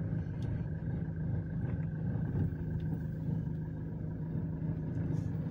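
A car running and rolling along a street, heard from inside the cabin as a steady low hum.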